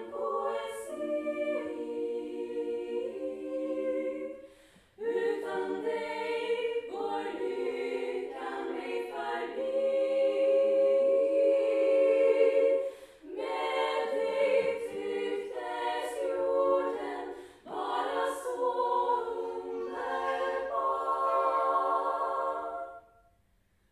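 Small women's choir singing a cappella in several-part harmony, phrase by phrase with short breath pauses between phrases, the loudest held chord about halfway through. The singing stops about a second before the end.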